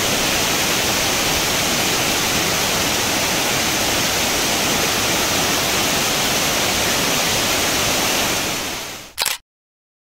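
Saluopa waterfall: a steady, loud rush of falling water. Near the end it fades, there is one short burst, and then the sound cuts off to dead silence.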